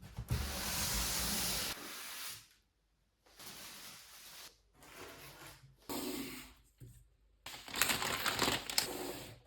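Handling noise from PC parts and their packaging: a string of short bursts of rustling, rubbing and clicking, each cutting off abruptly, the loudest near the start and about eight seconds in.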